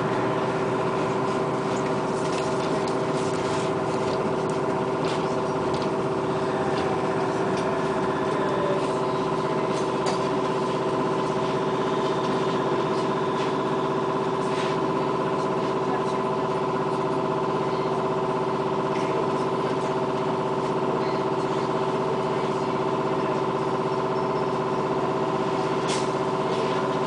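Inside a moving Bogdan trolleybus: a steady electric whine made of several constant tones over the rumble of the ride, with scattered light clicks and rattles.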